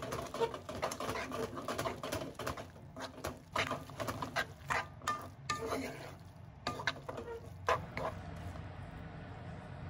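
Rapid, irregular light clicking and tapping that stops about eight seconds in, leaving a steady low hum.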